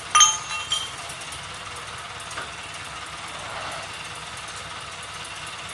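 Metal pipe clanking twice with a ringing tone, loudly about a quarter of a second in and again more softly just under a second in, as it is handled at a joint. Underneath, an engine idles steadily.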